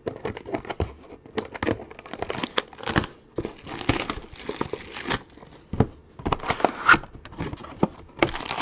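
Trading card packs being torn open and their wrappers crumpled: a run of irregular crinkling rips and crackles.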